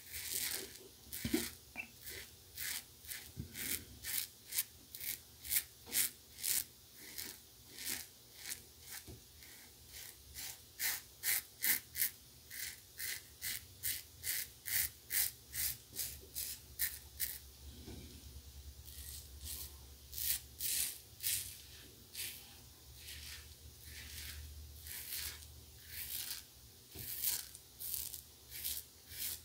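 Pearl Flexi double-edge safety razor with a Gillette Winner Stainless blade scraping through two days' stubble in quick short strokes, about two a second, crisp and high-pitched, with a brief pause about two-thirds of the way through.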